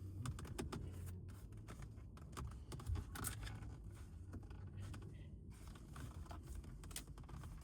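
Hands working a steering wheel cover onto a car's steering wheel: scraping, rubbing and many small scattered clicks and rustles over a low steady hum, with a sharper knock about three seconds in.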